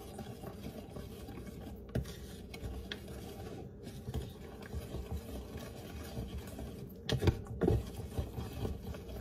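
Wire whisk scraping and stirring dry brownie batter (flour and cocoa) around a ceramic mixing bowl, in an irregular rhythm. A few sharper knocks stand out, the loudest about seven seconds in.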